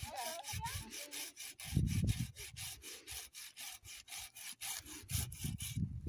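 Hand saw cutting through firewood in rapid, even strokes, roughly five a second, with a low thump about two seconds in.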